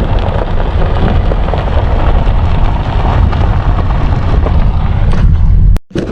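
Strong wind buffeting the microphone: a loud, steady low rumble with a gusty rushing above it. It cuts off suddenly near the end.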